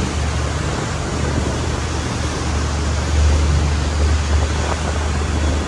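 Fishing boat under way: a steady low engine rumble under a rushing wash of wind and water.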